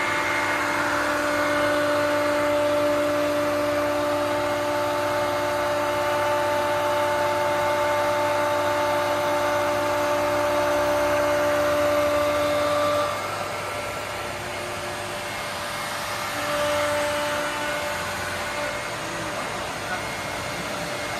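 YETI SmartBench CNC router cutting a sheet, its router spindle whining with a steady hum of the dust-extraction vacuum running alongside. The sound eases off a little about two-thirds of the way through, then partly swells again.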